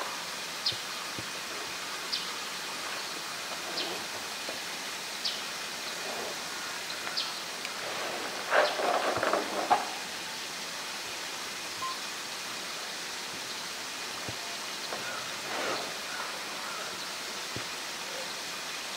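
Steady rush of running water. About halfway through comes a brief cluster of louder scrapes and knocks as a polar bear mouths and handles a blue plastic drum. Faint short high chirps recur every second or two.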